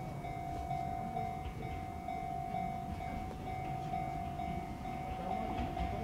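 Japanese railroad crossing alarm ringing its steady 'kan-kan' bell, about two strikes a second, while an Enoshima Electric Railway (Enoden) train rumbles past with some wheel clicks near the end.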